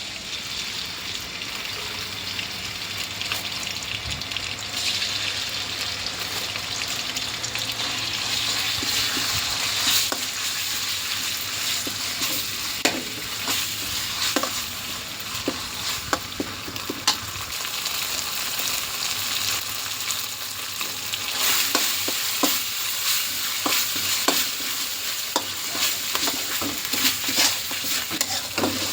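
Food sizzling in hot oil in a pan while being stirred, a steady hiss with a utensil clicking and scraping against the pan, more often in the second half.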